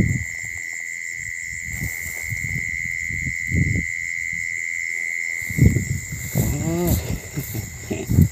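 Steady high-pitched insect trilling, crickets, runs throughout, with wind gusting on the microphone and rustling grass underneath. A brief voice-like call comes about six and a half seconds in.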